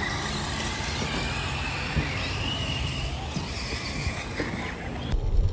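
Electric radio-controlled off-road cars running, their motors giving a high whine that rises and falls in pitch as the throttle changes. About five seconds in the sound changes abruptly, with a few low thumps.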